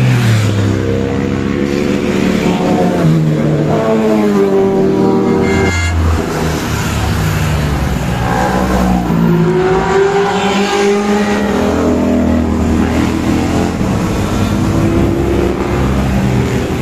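Motor vehicles passing close by one after another, loud throughout. Their engines rise in pitch as they rev up, and the pitch drops as each one goes past.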